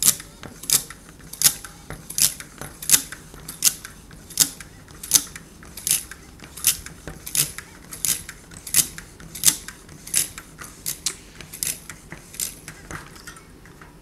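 Bicycle pump worked in a steady rhythm, about three strokes every two seconds, each stroke a short sharp hiss of air. It is inflating a tubular tyre to full pressure, which presses the rim tape firmly onto the tyre.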